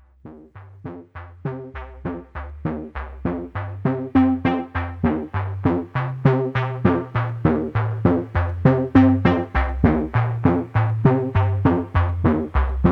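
Background music: a quick, even run of short struck notes, about four a second, over a bass line, starting quietly and growing louder over the first few seconds.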